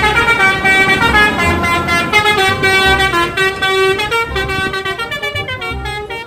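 Telolet bus horn playing a tune: several air-horn tones sounding together, stepping from note to note about every half second.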